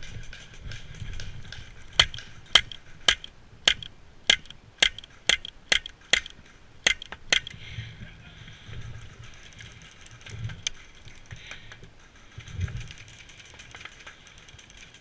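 Airsoft gun firing a string of about a dozen single shots, roughly two a second, each a sharp crack, starting about two seconds in and stopping near the middle, over a steady background hiss.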